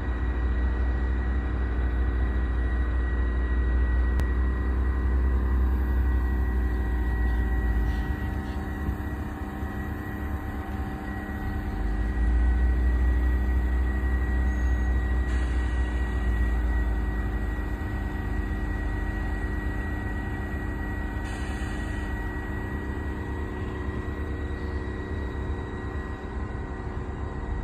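Steady machinery hum made of several held tones over a heavy low rumble. The rumble eases off about eight seconds in and comes back a few seconds later.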